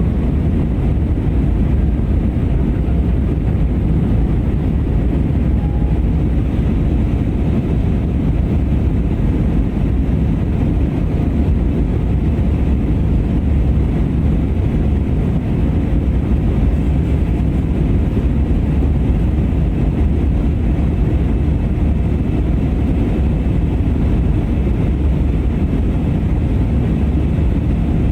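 Steady airliner cabin noise in flight: a constant low rumble of engines and airflow, unchanging throughout.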